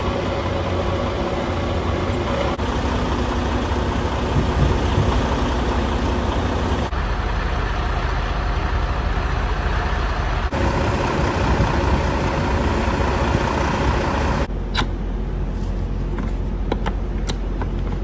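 Steady diesel drone of an idling semi truck and its running trailer refrigeration unit. In the last few seconds there are several sharp clicks.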